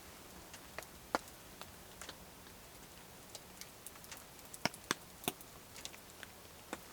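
Scattered sharp ticks and clicks at uneven intervals over a faint steady hiss, with a cluster of louder clicks around the middle.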